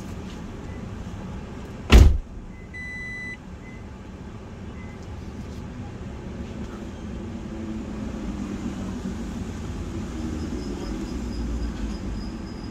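A car door shuts with a single loud thump about two seconds in, followed by a short electronic chime from the car; a low steady rumble of the car runs underneath.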